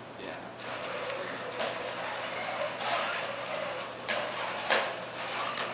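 Small wheeled soccer robots driving on carpet: a steady motor and wheel whirr that sets in about half a second in, with a few short knocks.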